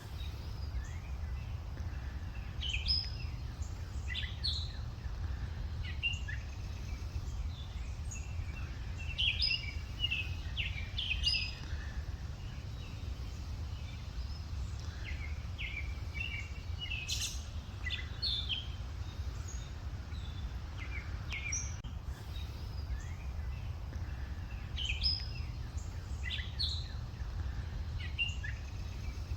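Birds chirping and calling in short, scattered phrases, over a steady low rumble.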